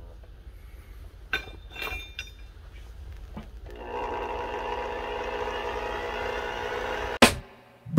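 Steel leaf spring clinking as it is laid onto the coals of a coal forge. About four seconds in, a steady mechanical hum starts, typical of the forge's air blower, and the fire flares. A sharp knock near the end cuts it off.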